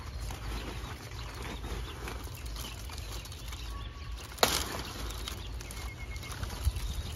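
Rustling and crackling of stiff pineapple leaves and paper fruit bags as the plants are handled during picking, over a low wind rumble on the microphone, with one sharp click a little after the middle.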